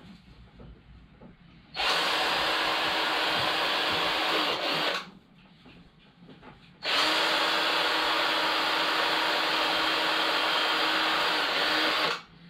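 Cordless drill running into thin wooden slivers held against a board, in two steady runs about three and five seconds long, the motor dipping briefly in speed at the start and end of each.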